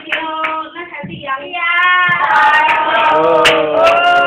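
A high young voice singing in long, drawn-out notes that slide up and down in pitch, with a sharp clap or knock about three and a half seconds in.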